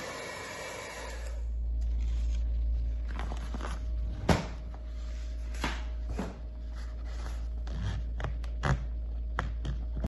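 Hair dryer blowing on a fridge door's rubber seal, cutting off about a second in. After it come a low steady hum and scattered short rustles and scrapes of toilet paper being handled against the door seal, the loudest about four seconds in.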